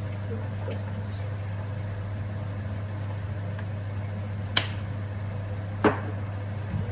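Steady low machine hum, like a kitchen appliance or fan running, with two sharp knocks a little over a second apart past the middle.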